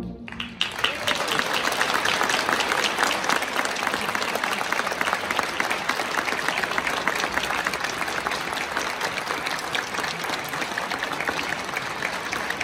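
Audience applauding, starting within the first second and going on steadily.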